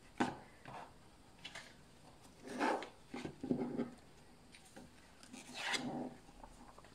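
A thin paperback picture book being handled: the cover flipped and the pages turned and smoothed flat by hand. A light tap near the start, then a few soft paper rustles and rubs.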